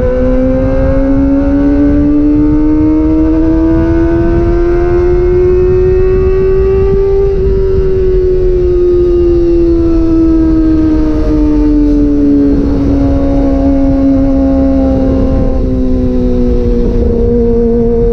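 2022 Kawasaki ZX-25R's 250 cc inline-four running through a DX Generation GPR aftermarket exhaust with the dB killer removed, pulling in gear: the engine note climbs slowly for about seven seconds as the bike gains speed, then slowly drops as the rider eases off, levelling out near the end. Wind noise rushes underneath.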